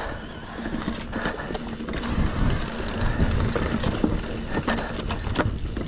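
Electric mountain bike riding over a rough, rocky dirt trail: a run of rattles and knocks from the bike over the rumble of tyres and wind, with a faint steady hum from the motor.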